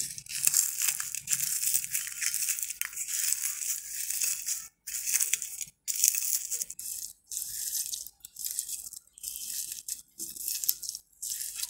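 Bare hand crushing dried red chillies and mixing them with chopped onion, garlic, mustard oil and salt on a plate: a dry crackling and crunching in short, uneven bursts.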